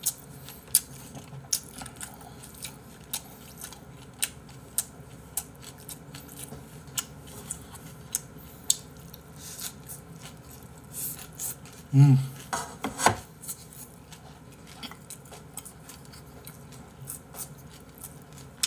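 Close-miked eating sounds: a steady run of short sharp clicks and wet smacks from chewing and chopsticks as braised mackerel, radish and rice are eaten. A brief low vocal sound, falling in pitch, comes about twelve seconds in.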